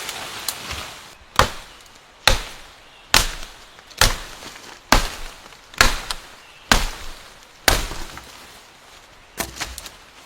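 Repeated sharp tool strikes, as in chopping: eight in a steady rhythm about one a second, then a ninth after a short pause near the end.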